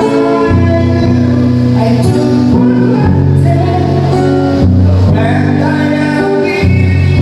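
A man singing to his own acoustic guitar through a microphone, holding long notes over the strummed chords.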